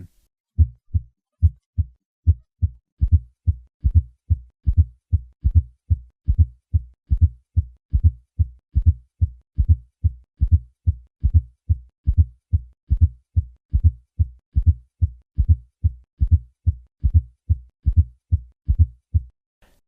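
Heart sounds at the cardiac apex in a steady, repeating rhythm of short, low-pitched thuds. A fourth heart sound comes just before each first heart sound, which with the second heart sound makes a triple rhythm. It is the sign of a stiff, non-compliant ventricle.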